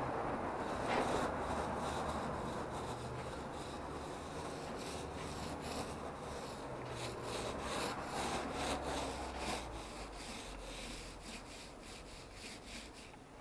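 Hand pole sander rubbing over patched plaster on a ceiling beam in quick back-and-forth strokes, smoothing filled nail holes and damage.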